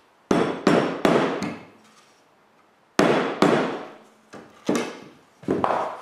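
Plywood test pieces knocking together as a finger joint is tried and will not go together: about ten sharp wooden knocks in uneven groups, each ringing briefly.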